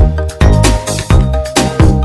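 Background electronic music with a steady beat, about two beats a second.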